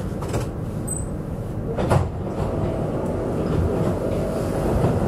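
Duewag B80D light-rail car heard from inside the passenger compartment while running: a steady low rumble of wheels on track, with a single sharp knock about two seconds in.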